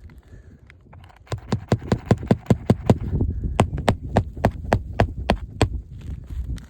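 Rapid, even hammer strikes on a roof shingle, about five a second for roughly four seconds: roofing nails being driven to fasten a replacement three-tab shingle.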